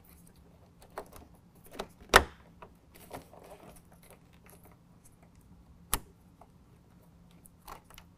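Plastic clicks and light rattles of a headlight bulb's wiring, connector and anti-flicker module being handled and pushed down inside a pickup truck's plastic headlight housing. The sharpest click comes about two seconds in, with another near six seconds.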